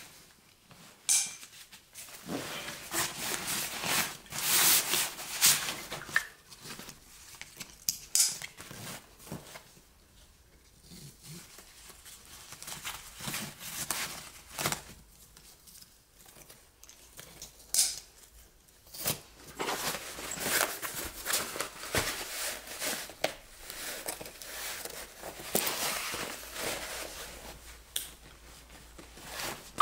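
Close handling noises: irregular rustling, crinkling and clicks, as of gear or packaging being handled.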